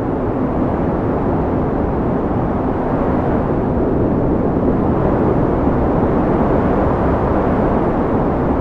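Winter storm wind blowing hard and without a break: a loud, steady, low rumble of wind noise.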